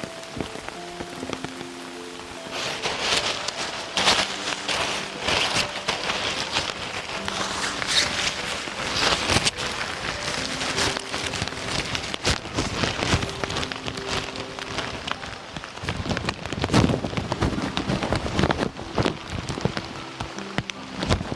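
Rain falling and pattering, heavier after the first couple of seconds, with soft, slow background music.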